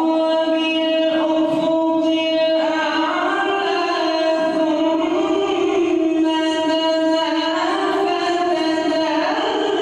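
A male reciter chanting the Quran in melodic tajwid style, holding long drawn-out notes of two to three seconds that bend gently up and down in pitch.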